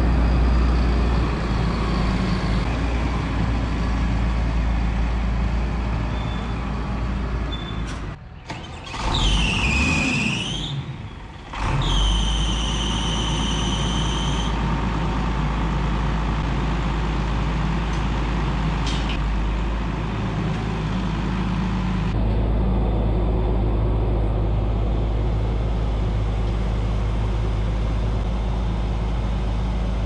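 Heavy diesel farm machinery engine running steadily. It breaks off twice briefly. A short high squeal that dips and rises comes about ten seconds in, then a steady high-pitched whine for a couple of seconds.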